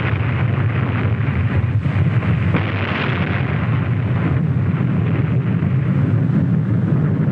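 Continuous loud rumbling roar of an atomic bomb test explosion, with a few sharp cracks about two to two and a half seconds in.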